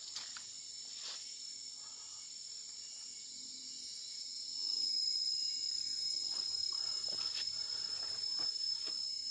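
A steady high-pitched chorus of insects such as crickets, growing louder about halfway through.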